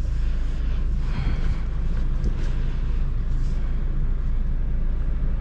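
Steady low rumble of a Genesis SUV heard from inside the cabin: engine and road noise as the car is driven.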